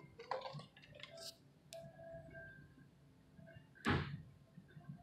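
Handling noise from a handheld phone and a plastic blister-packed toy: a few soft clicks and plastic rustles in the first second or so, then one louder rustling knock about four seconds in.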